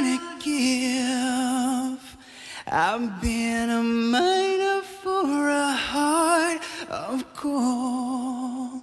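A man's solo singing voice, pitched high, holding long notes with vibrato in several phrases separated by short breaks.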